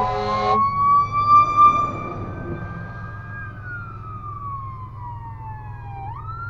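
Emergency-vehicle siren wailing, heard from inside a Honda Civic over the car's low steady engine hum. Its pitch rises over the first second or so, holds, slides slowly down, then jumps back up near the end.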